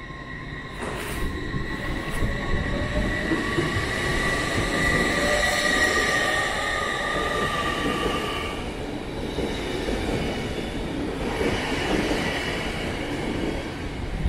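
TransPennine Express Class 802 train running into the platform and slowing to a stop, its wheels and brakes giving a high, steady squeal that is strongest about halfway through and fades as it nears a halt, over the rumble of the train.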